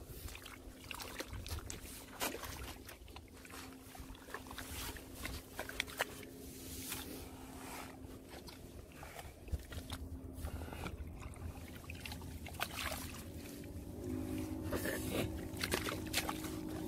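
A metal shovel digging in wet tidal mud: repeated scrapes, squelches and sloshes as the blade cuts into a water-filled hole. A steady low hum runs underneath, and a second hum joins about three-quarters of the way through.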